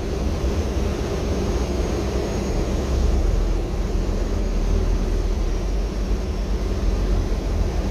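Steady drivetrain and road noise heard inside the cabin of a moving 2014 Gillig trolley-replica hybrid bus: a low rumble with a faint high whine above it.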